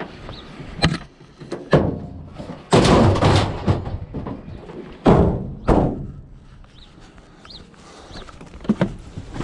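A discarded microwave and other scrap being grabbed and thrown onto a scrap load. There are a couple of knocks, then two loud metal crashes, the second about two seconds after the first.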